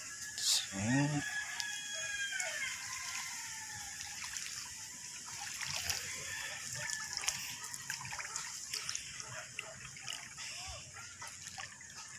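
A rooster crowing once: one long call of about two seconds that falls in pitch at the end, over a steady high hiss.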